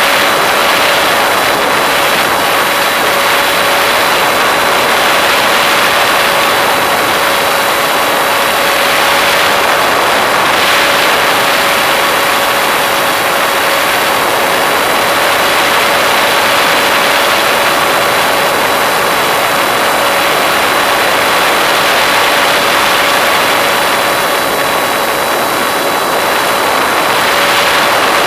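Model airplane's motor and propeller running steadily in flight, a constant whine over rushing air, heard from a camera mounted on the plane.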